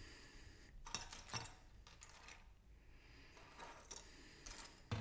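Loose plastic LEGO pieces clicking and clattering as they are sorted through by hand: a few small clicks about a second in, then a run of clicks toward the end, with the sharpest one at the very end.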